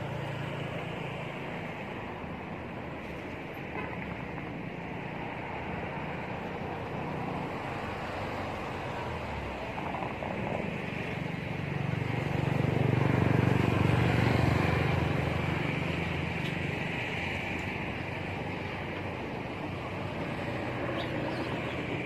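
Steady road traffic noise, with a motor vehicle passing that grows louder towards the middle and then fades.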